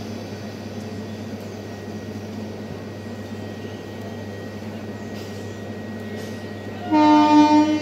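EMU local train standing at a platform, its electrical equipment giving a steady hum. About seven seconds in, a train horn sounds once, a loud single-pitched blast of about a second.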